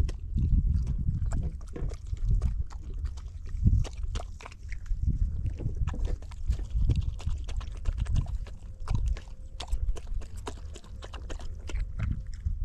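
Livestock moving, hooves clattering in irregular clicks and knocks over a steady low rumble.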